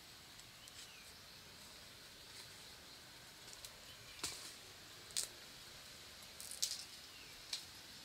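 Digging in forest soil and dry leaf litter while harvesting bamboo shoots: a few short scraping crunches in the second half, about a second apart, over a faint steady hiss of forest ambience.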